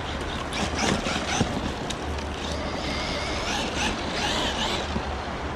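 Traxxas Maxx electric RC monster truck driving over rough trail ground, its motor whining and its chassis rattling. A low, steady rumble sits under it and drops out for a moment about a second in.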